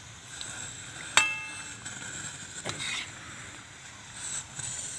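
A single sharp metallic clink about a second in, ringing briefly before fading, over a steady background hiss.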